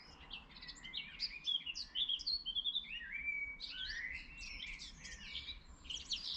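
Small birds chirping: a busy, overlapping run of short high calls and quick trills.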